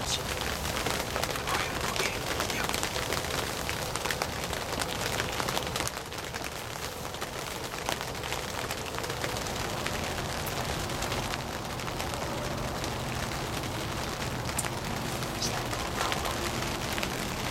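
Steady rain pattering, an even dense crackle with a few sharper drops standing out.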